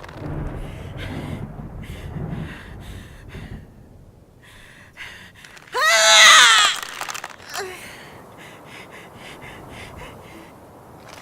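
Designed female werewolf transformation sound effect: a woman's strained, wheezing and gasping breaths with low rough growling in the first few seconds, broken by a loud, pitched, wavering cry about six seconds in.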